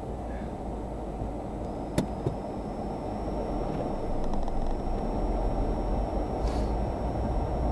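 Car driving slowly, its engine and road noise a steady low rumble inside the cabin that grows a little louder about halfway through. A single sharp click about two seconds in.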